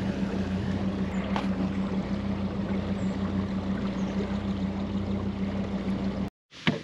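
Boat motor running steadily, a constant low hum with one strong steady tone, which cuts off abruptly near the end.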